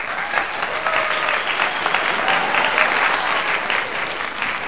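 Crowd applauding: many hands clapping densely, with a few faint voices among it, easing off slightly near the end.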